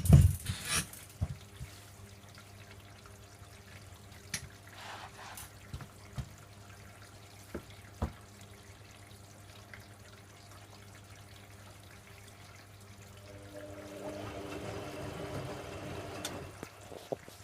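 Hoover Logic A3790 washing machine mid-wash, with water trickling and sloshing in the drum over a steady low hum and a few light clicks. About thirteen seconds in, the drum motor comes in with a whine and louder swishing for about three seconds.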